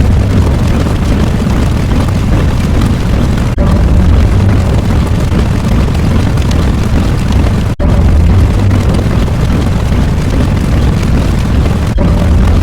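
Loud, continuous rumbling noise effect, strongest in the bass, with a brief break about every four seconds where the loop restarts.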